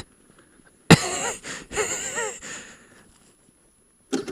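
A motorcycle engine falls silent after stalling on a pull-away. About a second in there is one sharp knock, then the rider's wordless groan and sigh, and a short click near the end.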